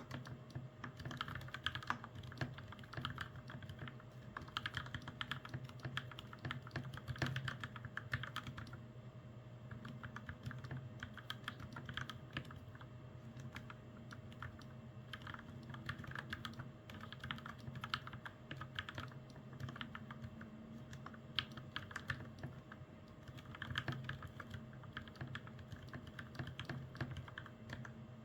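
Typing on a custom mechanical keyboard with Gateron Milky Yellow Pro linear switches and PBT keycaps: a continuous, irregular run of keystrokes.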